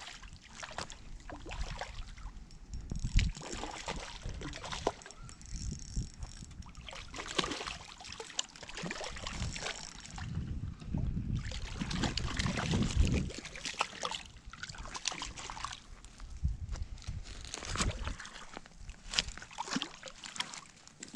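Water sloshing and splashing at close range, mixed with irregular knocks and rustles of handling.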